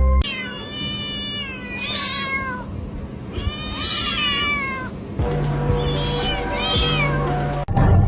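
A cat meowing: two long drawn-out meows that slide down in pitch, then a third shorter one over background music that comes in about five seconds in.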